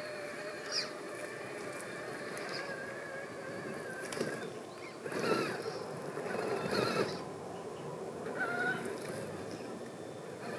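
Axial SCX6 1/6-scale RC crawler's electric motor and geared drivetrain whining, the pitch wavering as the throttle changes while it crawls over roots. The tyres scrabble and crunch on dirt, loudest about halfway through.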